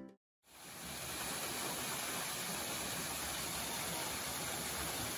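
Guitar music cuts off, and after a moment of silence the steady rushing hiss of a small waterfall splashing into a shallow pool fades in and holds level.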